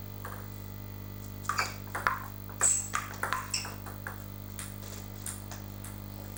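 Table tennis rally: the ball clicks sharply back and forth off the bats and table in quick succession for a couple of seconds, then a few fainter, spaced ticks near the end as the point finishes.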